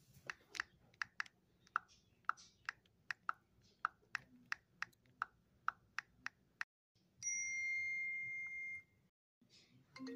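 Light fingertip taps on a plastic toy smartphone's screen, about three a second, as if typing a text. Near the end comes a steady high electronic beep lasting about two seconds.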